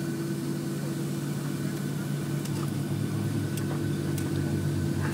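Cabin noise of a Boeing 737-700 taxiing after landing: a steady low drone from the engines at idle, with a thin steady high whine on top and a few faint clicks.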